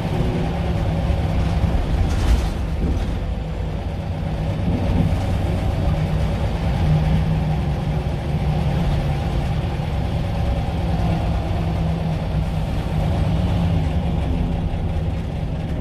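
Scania L94UB bus's nine-litre five-cylinder diesel engine heard from inside the saloon while under way: a steady low drone whose pitch rises and falls a little.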